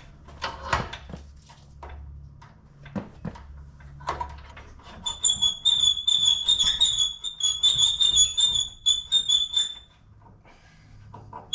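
Clicks and knocks of handling, then from about five seconds in a quick run of short, high electronic beeps lasting about five seconds: a battery charger beeping as it is plugged in and starts charging.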